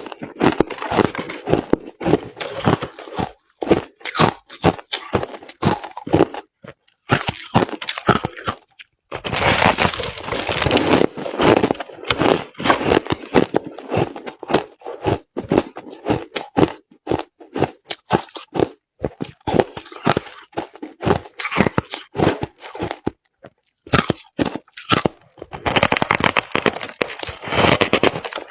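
Close-up chewing of crushed ice: dense runs of sharp crunching and cracking, in bursts separated by brief pauses.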